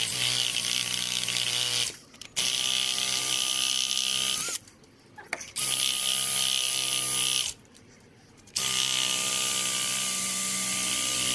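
Power drill running in four short bursts of two to three seconds each, with brief pauses between, at a steady pitch. A drill bit is boring out the oil sump's stripped drain-plug hole to a larger size for a Helicoil.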